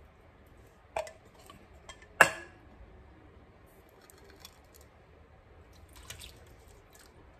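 Canned diced tomatoes sliding and plopping wetly out of a metal can into a slow cooker's crock, with a few short knocks of the can, the loudest about two seconds in and a cluster of smaller clicks near six seconds as a second can is emptied.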